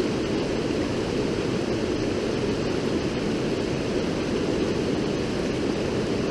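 River water rushing steadily: an even, unbroken rush that is heaviest in the low and middle tones.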